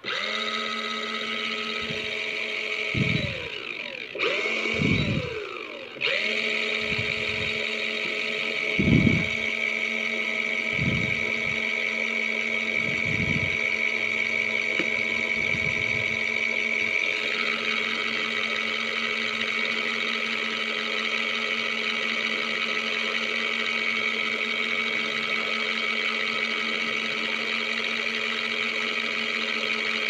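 Mini foldable washing machine's motor running with a steady hum as it spins the pulsator. A few seconds in, it briefly slows and picks up again twice. Dull low knocks come through the first half.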